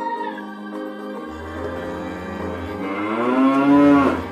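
Background music, then about three seconds in one long, deep bellowing moo of a buffalo that rises and falls in pitch.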